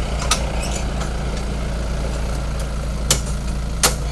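Light truck engine idling steadily with a low hum, with a few sharp knocks, the loudest near the end.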